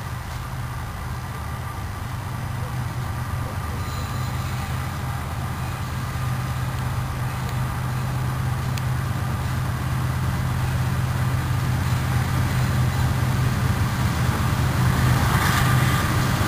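An approaching diesel locomotive's engine running, a steady low drone that grows gradually louder as it nears. A rougher rushing noise joins in near the end.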